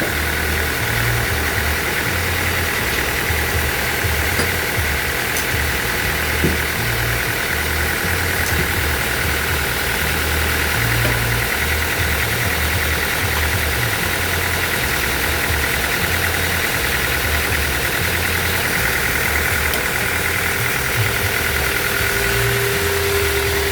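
Band sawmill running, a steady mechanical drone with a continuous high whine. A lower tone drops out just after the start and comes back near the end.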